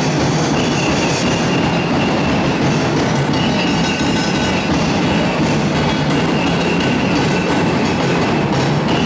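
Fast, dense drumming that accompanies an Ati-Atihan street dance, loud and without a break.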